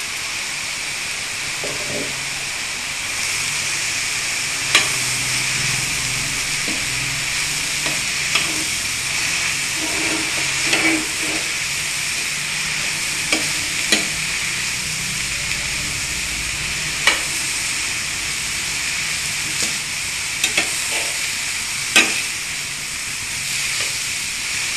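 Chopped elephant yam stems and grated coconut sizzling in a stainless steel pan as a metal spoon stirs them, with sharp clinks of the spoon against the pan now and then.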